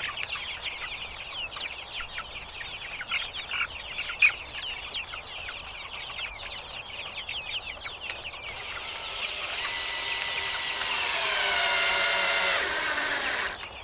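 Cordless drill driving a fastener into a plywood panel, its motor running for about four seconds and getting louder before cutting off just before the end. Before that, bird chirps and a single sharp click about four seconds in.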